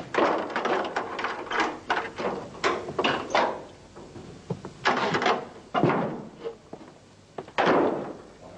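Door and handled objects: a quick run of knocks and clatters with a short echo, then a few heavier bangs in the second half.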